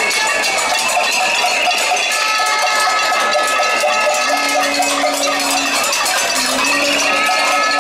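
Many pots and pans beaten with spoons and lids in a cacerolada protest: a dense, continuous metallic clatter with ringing tones held above it.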